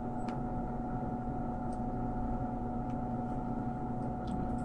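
A steady droning hum holding several fixed pitches, with a few faint light clicks over it.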